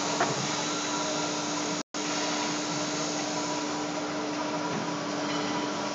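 Steady hum of a CNC exhaust pipe bending machine's hydraulic pump running, with one light knock just after the start. The sound cuts out for a moment near two seconds.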